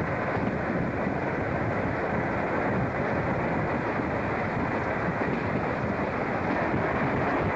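W set "red rattler" electric suburban train running along the line, heard from its vestibule with the doors open. A steady rushing noise of wheels on rail and air through the doorway.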